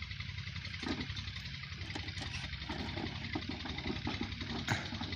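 Old Petter 25 HP diesel engine driving a tubewell pump, running steadily at a low idle. There are a couple of short sharp knocks, one about a second in and one near the end.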